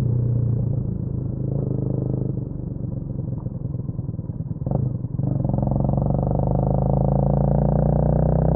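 Honda CMX250 Rebel's single-cylinder engine dropping to a lower, uneven putter with its separate firing pulses audible, with a short click near the five-second mark. It then picks up again to a steady, even drone.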